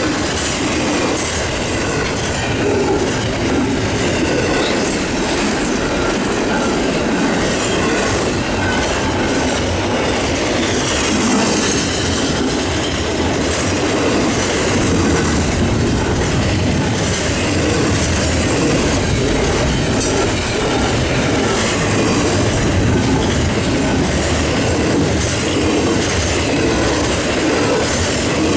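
Double-stack intermodal well cars of a freight train rolling past at about 60 mph: a steady rumble and rush of steel wheels on rail with a clickety-clack rhythm that does not let up.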